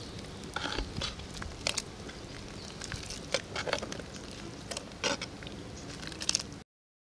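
Metal ladle stirring thick drumstick-leaf sambar in a clay pot: irregular scraping and sharp clicks of the ladle against the pot. The sound cuts off suddenly about six and a half seconds in.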